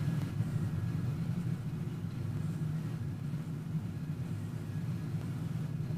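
Steady low rumble of a car driving at moderate speed, engine and tyre noise heard from inside the cabin.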